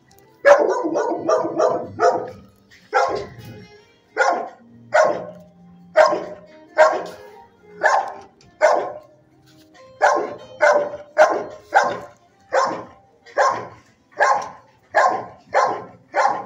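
Shelter dog barking over and over in a kennel: a quick run of barks about half a second in, then a steady bark every half second to a second.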